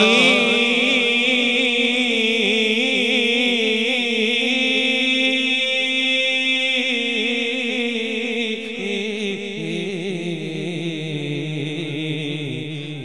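A male naat reciter sings Sufi devotional verse into a microphone, drawing out long held notes that waver in pitch.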